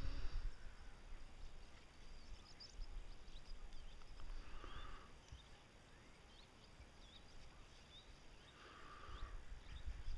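Faint outdoor ambience: scattered short chirps of small birds over a low wind rumble on the microphone, with two brief soft hisses, one about four and a half seconds in and one near nine seconds.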